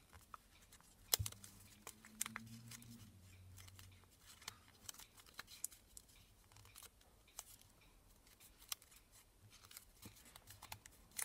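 Faint rustling and small, irregular crackles of origami paper as fingers fold and press down its creases.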